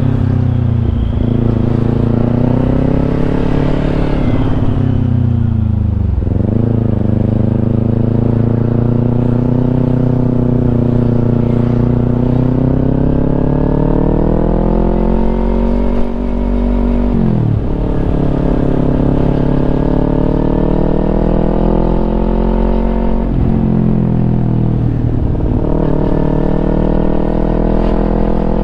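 Kawasaki Ninja 250 parallel-twin engine through an aftermarket Yoshimura exhaust, pulling under way with the engine note climbing steadily and dropping sharply at gear changes four times.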